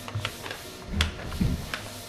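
A few sharp clicks and soft knocks from a whiteboard eraser and hands handling the surface of a touchscreen.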